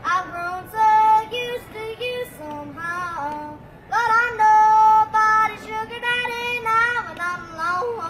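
A child yodeling unaccompanied, the voice flipping back and forth between low and high notes in quick breaks. There is a long high note held for about a second around the middle.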